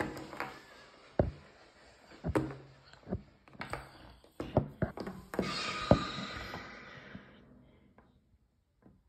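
Plastic toy animal figures tapped and knocked against a hard tabletop as they are moved about: a series of sharp, separate taps. About five seconds in a hissing sound with a faint tone comes in and fades away over a couple of seconds.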